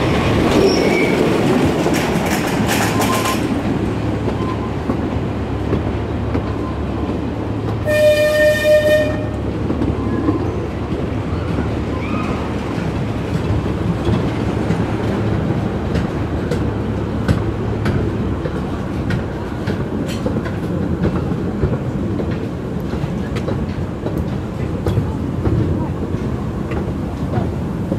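Miniature railway train running, heard from an open passenger carriage: a steady rumble of wheels on the track with light clicks. About eight seconds in, the locomotive gives one toot lasting about a second.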